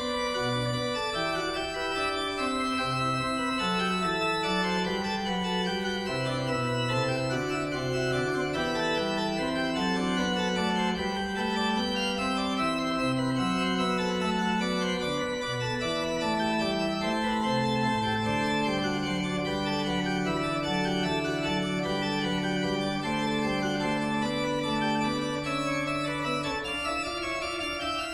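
Slow organ music: sustained notes and chords moving step by step, settling on a long held low chord about two-thirds of the way through.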